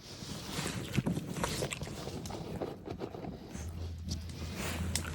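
Small dogs chewing food they are hand-fed, with scattered crunching clicks. A low steady hum comes in about three and a half seconds in.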